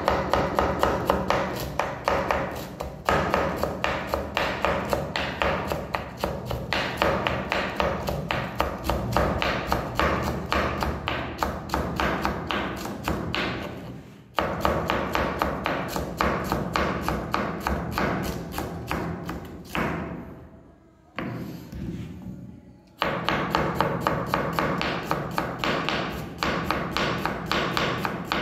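Kitchen knife chopping fast on a cutting board, in a steady run of about five knocks a second. It breaks off briefly about halfway through, then stops for a few seconds before starting again.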